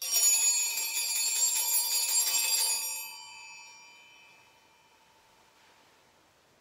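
Altar bells (sanctus bells) shaken for about three seconds, a bright ringing of several tones, then left to ring out and fade over the next few seconds. The ringing marks the elevation of the host and chalice at the end of the Eucharistic Prayer.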